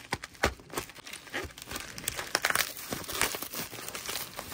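Pink plastic bubble mailer being cut and torn open, its plastic crinkling and tearing in irregular crackles.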